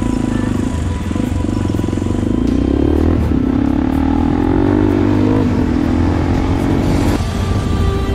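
Motorcycle engine running while riding. Its pitch rises about two seconds in, drops suddenly about three seconds in, then wavers.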